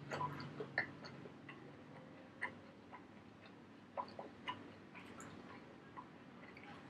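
Faint, irregular wet mouth clicks of a person chewing soft food with the mouth closed, a click every second or so.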